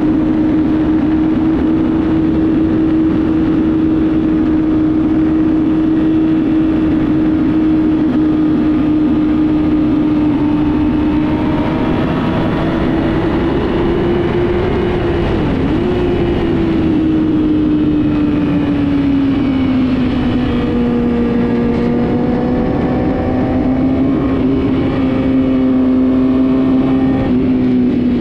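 Several motorcycle engines running at once. One holds a steady pitch, dips sharply for a moment about halfway, then settles a little lower, while other bikes' engines rise and fall in pitch over it in the second half.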